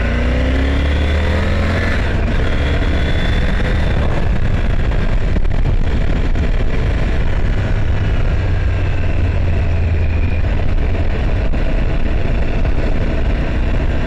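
Motorcycle engine pulling away and accelerating, its pitch rising over the first few seconds, then running steadily at riding speed under a constant rush of wind and road noise.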